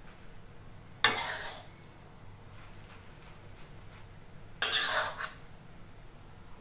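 Metal spatula scraping and clanking against a wok while turning rice vermicelli: one short stroke about a second in, and a longer scrape of several strikes near five seconds.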